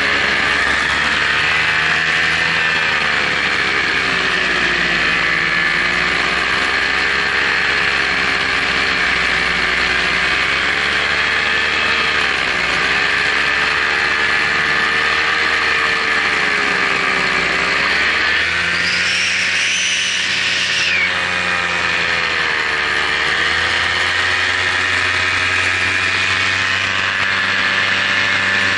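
Multirotor drone's electric motors and propellers whining loudly and steadily, the pitch sagging and climbing as the throttle changes, with a few deeper dips in the second half.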